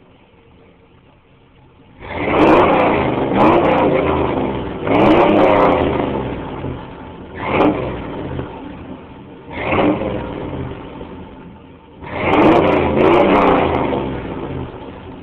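1989 Chevy Silverado's 5.7-litre V8 idling, then revved about two seconds in: a run of roughly seven throttle blips, each rising in pitch and falling back toward idle, before it settles back to a quiet idle near the end.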